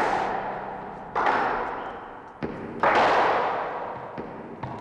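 Squash ball struck with a racket and hitting the court walls: three loud thumps, each with a long echo in the enclosed court, and a few lighter taps in between.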